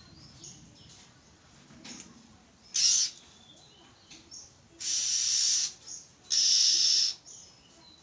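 Oriental magpie-robin giving three harsh, hissing rasps: a short one about three seconds in, then two longer ones of nearly a second each. Faint, short whistled notes come between them.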